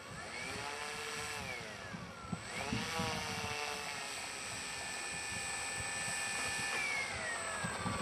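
Brushless outrunner electric motor and propeller of a HobbyKing Cessna 182 RC plane whining under throttle on its takeoff run. The pitch rises, dips about two seconds in, then climbs to a steady high whine that glides down near the end as the plane passes close by.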